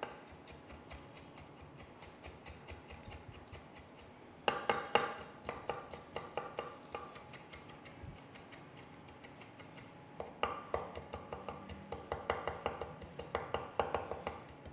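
Chef's knife tapping rapidly on a wooden cutting board as it minces bird's eye chilies, in quick runs of chops that grow louder about four and a half seconds in and again from about ten seconds in.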